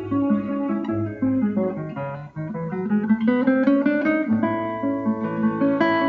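Instrumental theme music led by plucked acoustic guitar, its notes changing several times a second, with a brief dip a little over two seconds in.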